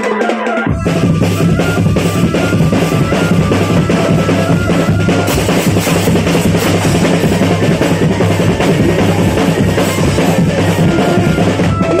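Loud, dense drum-driven music with a steady beat and held tones above it. The bass drops out for about the first half-second, then comes back.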